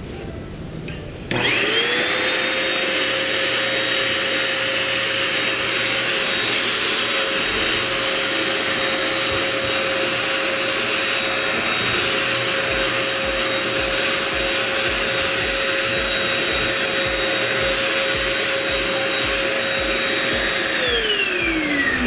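JK-8 1000 W handheld vacuum cleaner switched on, its motor spinning up within a second to a steady high whine over a rush of air as the crevice nozzle sucks at wood debris in a floor gap. Near the end it is switched off and the whine falls away as the motor spins down.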